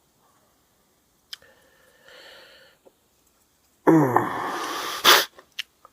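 Small plastic clicks and a faint scrape from a die-cast and plastic toy jet's parts being moved, then a loud burst of a person's voice falling in pitch and ending in a sharp blast of breath, and two more light clicks near the end.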